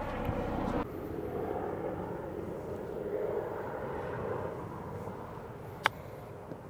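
A single sharp click of a golf club striking the ball on a short chip near the green, about six seconds in. Under it, a steady distant engine drone.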